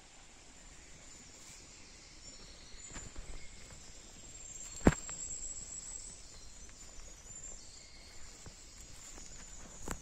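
Footsteps along a forest footpath, with one sharp crack about halfway through and faint high chirps in the background.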